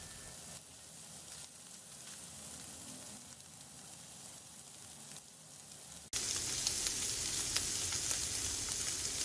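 Chicken breast pieces sizzling in hot oil in a frying pan, fried golden on both sides. The sizzle turns suddenly louder about six seconds in, with a few crackles after that.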